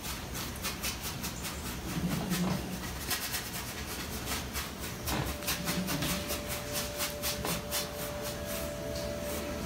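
Paintbrush scrubbing acrylic paint across a stretched canvas: short scratchy strokes, a few a second, over a steady hiss. A faint thin steady tone joins about five seconds in.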